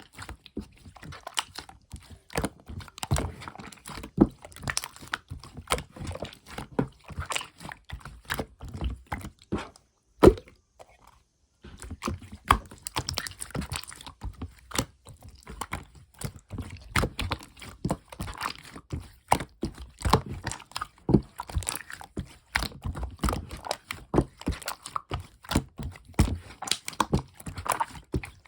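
Clear slime being squished and pressed by hand: a dense, irregular run of sticky clicks and small air-bubble pops. The sounds stop for about a second after one louder pop roughly a third of the way in, then carry on.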